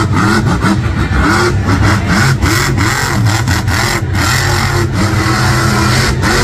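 Grave Digger monster truck's supercharged V8 revving up and down over and over as the truck drives and turns on the dirt.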